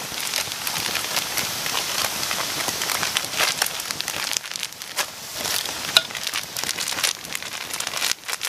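Wood cooking fire crackling and popping, with the hiss of eggs frying in a small tin set in the flames; one sharp loud crack about six seconds in.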